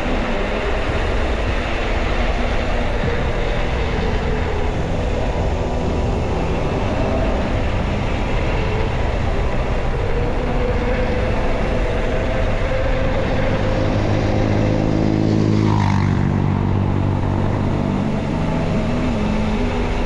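Motor vehicle engines running on the road with steady wind rush. About three-quarters through, an engine swells and its pitch falls sharply, as a vehicle passes close by.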